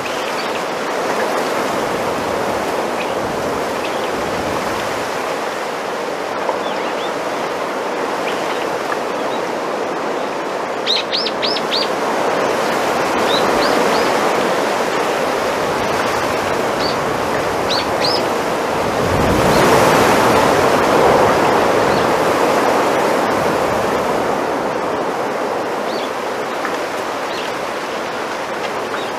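Bamboo leaves rustling in the wind, a steady hiss that swells with a stronger gust about two-thirds of the way through. A few short, high bird chirps sound around the middle.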